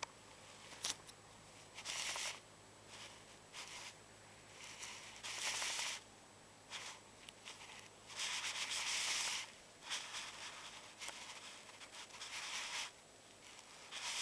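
Handling noise: a hand rubbing and scraping against a handheld camera close to its microphone, in a series of irregular bursts, the loudest and longest about eight to nine and a half seconds in.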